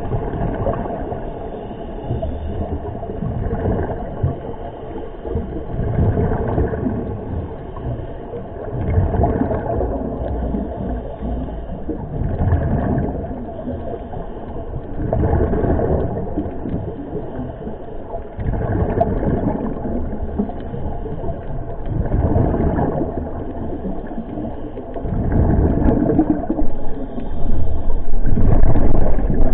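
Scuba diver breathing through a regulator, heard underwater: a rush of exhaled bubbles about every three seconds over a steady low underwater rumble.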